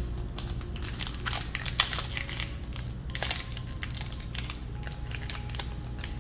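Foil Pokémon booster pack being torn and crinkled open: a run of sharp crackles, thickest in the first half, over a steady low hum.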